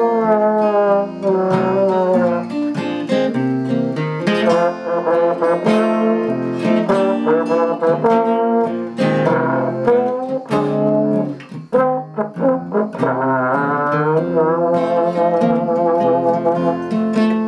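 Instrumental break: a slide trombone plays a melody that glides between notes, over acoustic guitar accompaniment.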